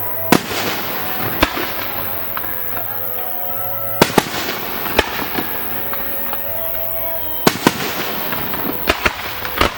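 Aerial fireworks bursting: about ten sharp bangs, some in quick pairs, over steady crackling and fizzing, with music playing in the background.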